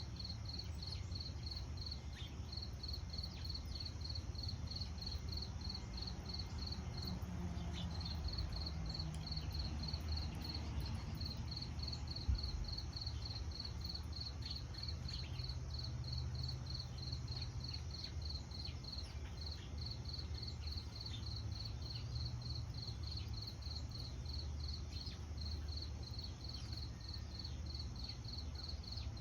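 A cricket chirping in a steady, even rhythm of about three high chirps a second, pausing briefly partway through, over a low outdoor rumble. A single short knock comes about twelve seconds in.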